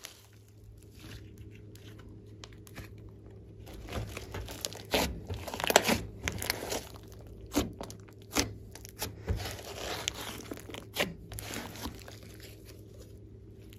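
Hands stretching, squishing and folding a large mass of glossy slime, giving irregular sticky clicks and pops. They are sparse at first, come thickest and loudest through the middle, and thin out near the end.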